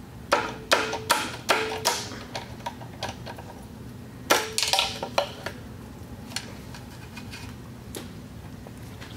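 Sharp metallic clicks and taps of pliers working loose small steel parts on a Mud Buddy Sport V transmission: about five in quick succession over the first two seconds, some with a short ring, another cluster around four to five seconds in, then a few scattered ticks.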